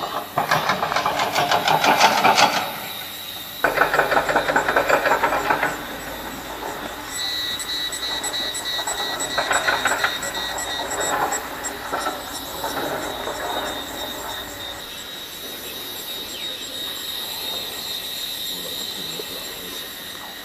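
Insects buzzing in loud, rapidly pulsing bursts, two strong ones in the first six seconds, then a fainter, steadier buzz with a high whine.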